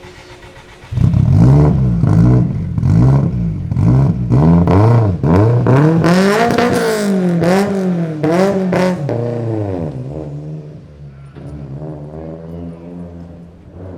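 A performance car engine comes in sharply about a second in and is revved again and again in quick rises and falls for about eight seconds, then settles to a steadier, lower running note that slowly fades.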